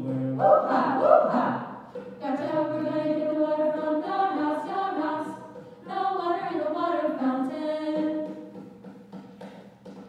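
Mixed choir of young men and women singing a cappella in phrases. A loud, rough burst of voices comes about half a second in, there are short breaks between phrases, and the singing thins out near the end.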